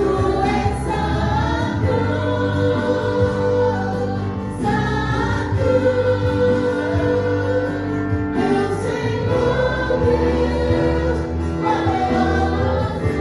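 Live gospel worship singing: a female lead singer and a group of backing vocalists singing long, held notes together over band accompaniment.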